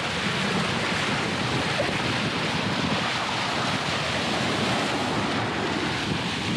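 Steady rush of sea water along a sailboat's hull under sail, with wind buffeting the microphone.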